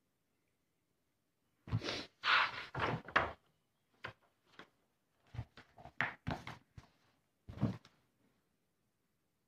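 Paper rustling and light knocks as a book is opened and its pages handled on a table: a burst of rustling about two seconds in, then scattered short rustles and knocks until near the end.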